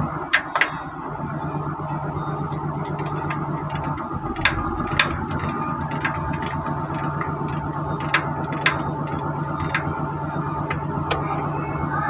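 Sharp metallic clinks of hand tools on the steel of a crane's boom base pin lock cylinder, a scattering of separate strikes, a pair near the start and more around the middle and near the end, over an engine running steadily.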